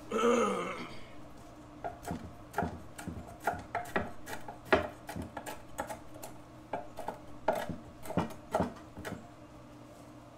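Knife chopping on a wooden cutting board: irregular knocks, about two a second, from about two seconds in, after a brief voice sound at the start.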